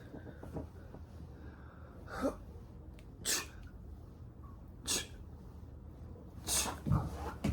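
A person breathing out hard in short, sharp bursts, five times at irregular spacing, the last two close together near the end, over a low steady hum.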